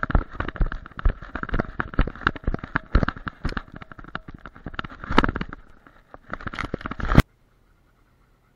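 Dense, irregular knocking and crackling from a camera strapped to a running German Shepherd, jostled with every stride. It cuts off suddenly about seven seconds in, leaving near silence.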